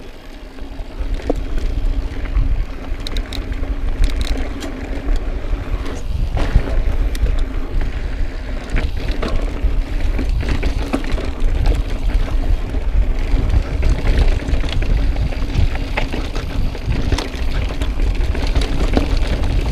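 Riding noise from a mountain bike on rocky dirt singletrack: wind buffeting the bike-mounted camera microphone over the crunch and rattle of tyres and frame. Scattered clicks and knocks come as the wheels hit rocks.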